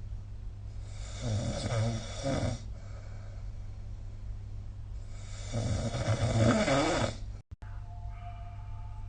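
A sleeping person snoring: two long, loud snores about four seconds apart, each lasting about two seconds. Near the end the sound cuts out for a moment, then a faint steady two-note hum follows.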